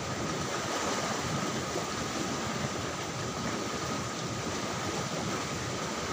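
Steady rush of water flowing in a stone-lined channel, an even noise with no breaks.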